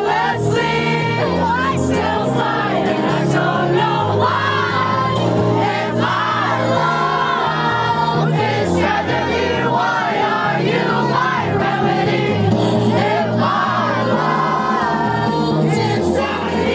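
Music with sung vocals over a steady bass line.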